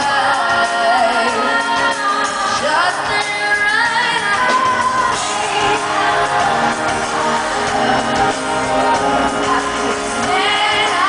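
Live pop music heard from the audience in a large hall: a woman singing lead into a microphone, with backing vocals over acoustic guitar.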